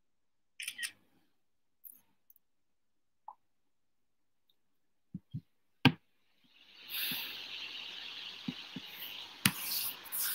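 A few faint clicks and taps, then a sharp click about six seconds in, followed by about four seconds of steady rustling and handling noise close to the microphone with small knocks in it.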